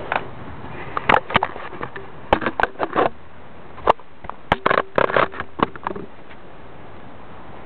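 Clatter of sharp knocks and clicks from an alarm clock being smashed, coming in quick irregular clusters, then only a steady hiss for the last couple of seconds.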